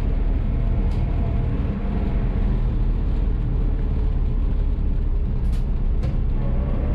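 Steady engine and road rumble of a vehicle towing an empty trailer on the road, with a few faint ticks.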